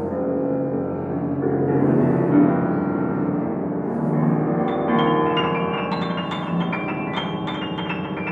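Kimball grand piano played solo: low, sustained chords left ringing, then from about five seconds in a run of quick, repeated high notes over them.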